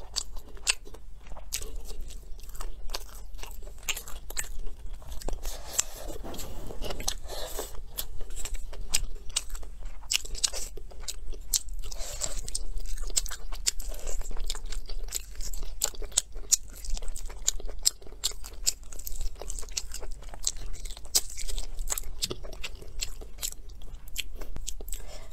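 Close-miked eating: chewing and crunching of fried potato cubes and gnawing on a braised pork trotter, with many irregular sharp mouth clicks.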